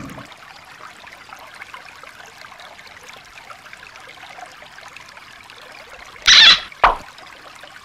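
Shallow stream water trickling over rocks, faint and steady. About six seconds in come two short, loud noises, the first a little longer than the second.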